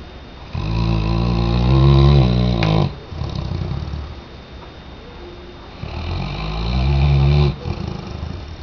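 Weimaraner dog snoring in its sleep: two long snores of about two seconds each, one starting about half a second in and the next about six seconds in, with quieter breathing between.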